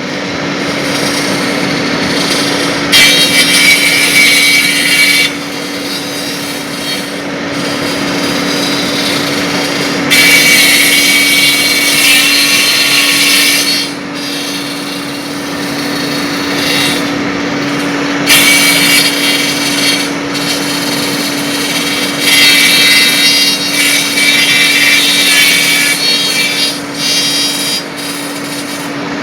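Wood copying lathe turning a baluster: the motor hums steadily while the cutter bites into the spinning wood in four spells of loud cutting noise, each a few seconds long.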